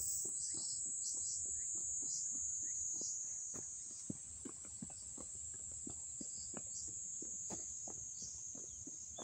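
A steady, high-pitched drone of insects calling in the trees, with scattered faint clicks. It drops slightly in level about four seconds in.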